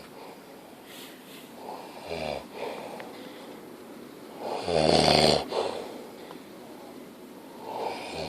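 A man snoring in his sleep, really loud: a few separate snores, the loudest and longest, about a second long, coming about halfway through.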